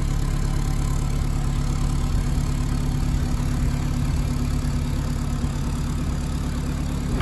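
A widebeam canal boat's diesel engine idling steadily.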